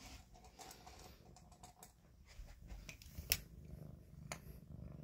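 Cat purring, a low pulsing rumble that builds from about two seconds in, while it eats from a metal food bowl. Sharp clicks of eating and of the bowl come through, the loudest a little past halfway.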